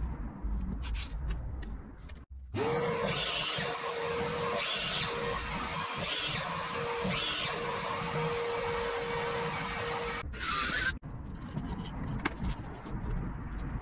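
Makita 12-inch sliding compound miter saw running with a steady motor whine and cutting through plywood four times, trimming the corners off a square blank. The saw starts about two and a half seconds in and stops around ten seconds in.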